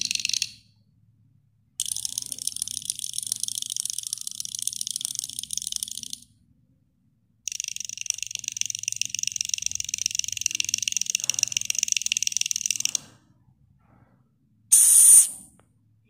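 High-pitched insect buzzing trills, rapidly pulsed, in separate bursts of several seconds with silent gaps between them. Near the end comes a short, loud hiss.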